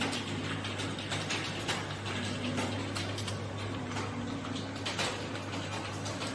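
Computer keyboard being typed on at a steady pace, a quick irregular run of key clicks, over a steady low hum.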